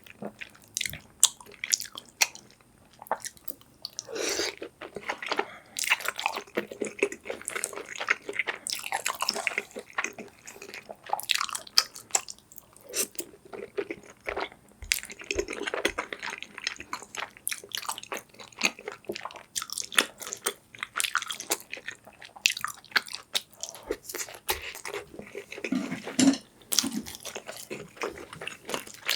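Close-miked eating: a person biting and chewing soft, saucy food, with wet mouth sounds and irregular clicks and smacks.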